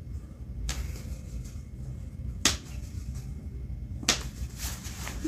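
Three short, sharp hand taps about a second and a half apart, over a low steady room hum.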